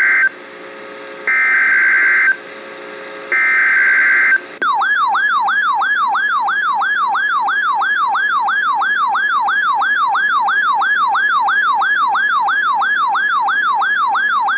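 Emergency Alert System SAME header: the end of one burst of rapid digital data tones, then two more one-second bursts a second apart. About four and a half seconds in, a loud warbling alert tone starts, sweeping up and down about three times a second.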